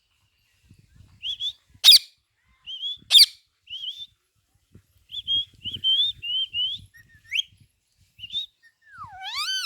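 Pet Indian green parrot chirping and whistling in short high calls, with two sharp, loud shrieks about two and three seconds in. A run of quick warbled chirps follows, then a swooping whistle near the end.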